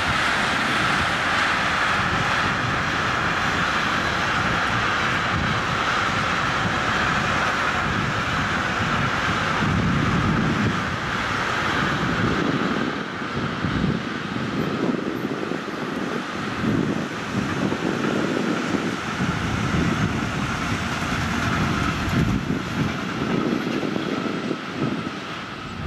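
Long intermodal freight train of container and trailer wagons rolling past at speed: a steady rush of wheels on rail, with uneven low rumbles from the passing wagons in the second half and a slight fade near the end.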